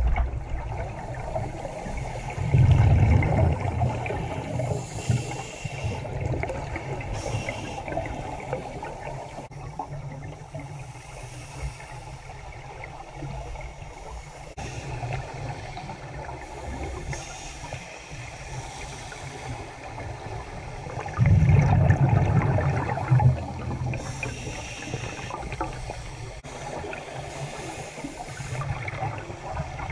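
Scuba diver's exhaled regulator bubbles, heard underwater through a GoPro dive housing: two loud, low, bubbling rushes, about three seconds in and again about twenty-one seconds in, over a steady muffled wash of water noise.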